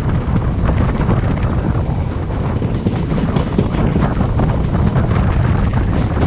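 Indian Railways passenger train running at speed, heard from outside the coach: a steady rolling rumble of wheels on rail with faint rail clicks, under heavy wind buffeting the microphone.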